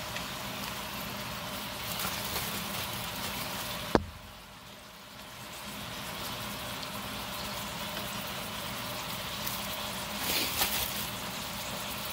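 Thin-sliced beef steak pieces and onions sizzling in a stainless steel pan, a steady frying hiss. A sharp click about four seconds in, after which the sizzle drops for a moment and builds back up, and a few brief scrapes near the end.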